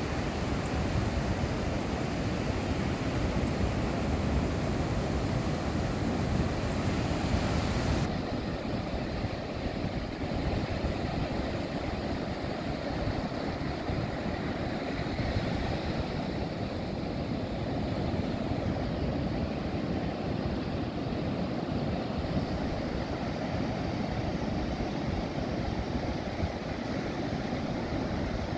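Ocean surf breaking and washing up a sandy beach, a steady rush with a heavy low rumble, likely with wind on the microphone. About eight seconds in the hiss abruptly turns duller.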